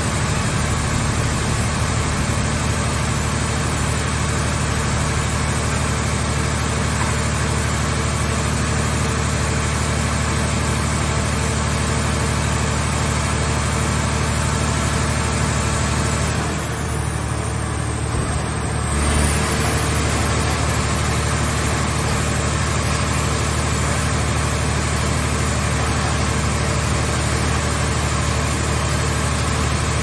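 Steady low drone of heavy hydraulic machinery running: a scrap car-shell baler and its grab crane. The hiss above the drone drops away for about two seconds past the middle, ending in a low thump.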